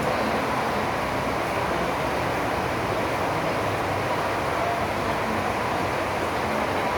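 Steady, even rushing noise of drizzling rain, with no distinct events.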